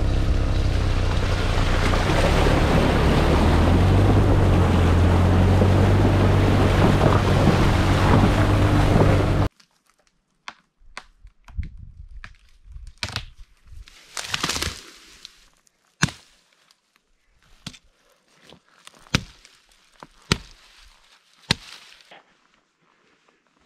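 Wind buffeting the microphone, a loud rumbling rush that cuts off abruptly about nine seconds in. Then scattered crunches and sharp knocks at irregular intervals.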